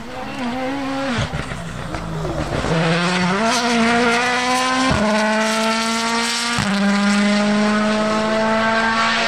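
Rally car accelerating hard through the gears: the engine's pitch climbs steadily, drops suddenly at two upshifts about a second and a half apart, and climbs again, growing louder over the first few seconds as the car approaches.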